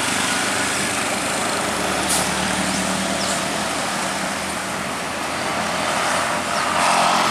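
Road traffic on a steep uphill bend: a heavy diesel truck's engine pulling uphill while a car and a motorcycle pass close by, a steady engine drone under tyre noise that grows louder near the end.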